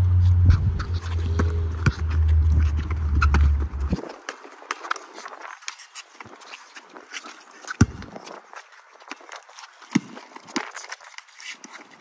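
Background music with a deep bass line, which cuts out about four seconds in. After that, a basketball bounces on a concrete court amid sneaker footsteps, with two louder bounces about eight and ten seconds in.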